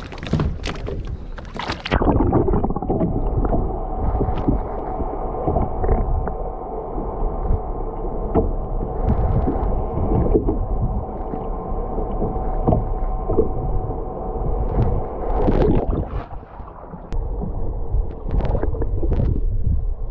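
Water splashing for about two seconds, then the dull, muffled sound of the sea heard underwater beside a boat: a low rumble of moving water with a steady hum and scattered knocks.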